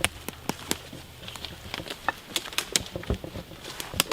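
Dry fallen leaves crunching and crackling in irregular snaps, as people step and search through the leaf litter.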